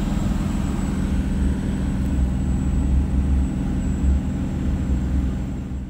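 Cummins diesel pickup with compound turbos heard from inside the cab: a steady low engine drone under load on a long highway climb, with a faint steady high whine above it. It fades out at the end.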